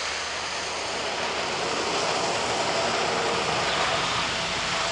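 Steady rushing hiss of water spray from the fountain jets that form a water screen.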